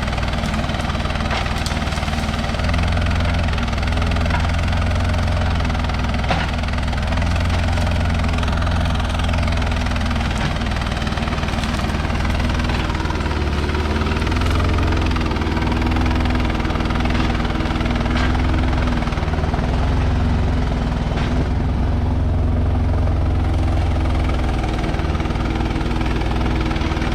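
Diesel engine of heavy land-clearing equipment running steadily under load, with a few sharp knocks scattered through.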